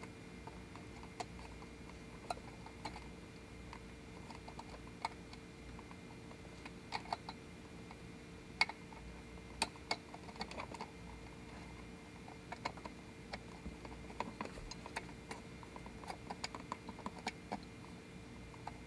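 Quiet, irregular small plastic clicks and rattles as wire harness plugs are pushed into the back of a gauge and the wires handled.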